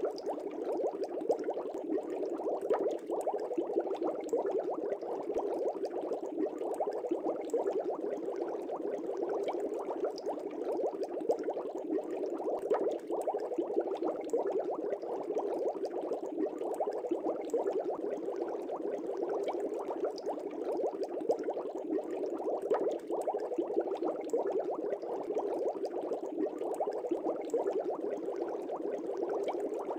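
Steady bubbling of water, a dense even stream of small bubbles and pops.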